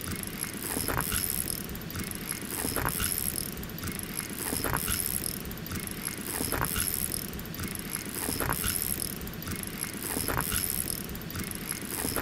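Fishing reel being cranked to bring in a hooked trout: a ratcheting whir that comes in stretches about every two seconds, with a light click between them.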